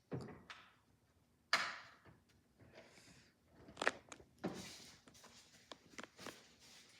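Handling noise from unboxing an alarm clock: knocks, scrapes and rustling of its packaging. A thump comes at the very start, a loud scrape about a second and a half in, and several sharp clicks follow.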